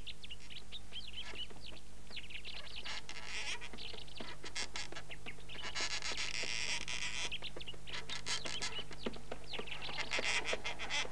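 Small birds chirping and twittering in quick, high calls, with busier flurries about a third of the way in, around the middle and near the end, over a faint steady hum.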